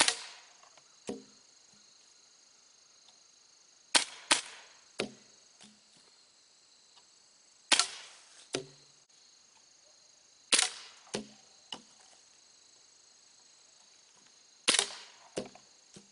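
Airsoft pistol firing six sharp shots at thrown flying-disc targets: one near the start, a quick pair about four seconds in, then single shots about every three to four seconds. Each shot is followed within about a second by one or two duller knocks.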